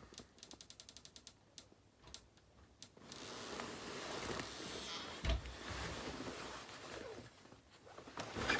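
Handling of a parka: a quick run of small clicks, a few more scattered clicks, then soft rustling of the coat's fabric with a single thump about five seconds in.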